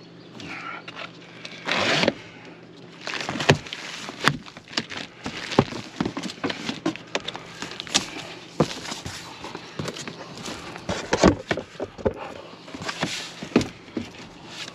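A large cardboard shipping box being opened by hand. Its tape and flaps are pulled open with a loud tearing scrape about two seconds in, then many knocks and rustles of cardboard and of the plastic-wrapped bell tent packed inside.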